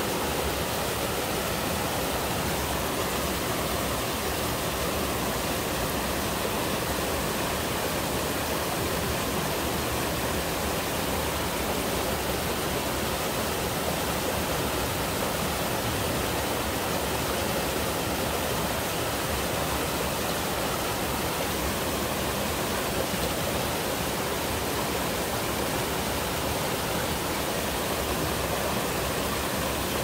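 Twin small waterfalls of a mountain stream pouring over boulders into a rocky pool: a steady rush of water.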